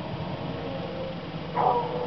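Steady hiss of a night thunderstorm's rain. About one and a half seconds in, a louder held, pitched sound starts suddenly and keeps going, dipping slightly in pitch.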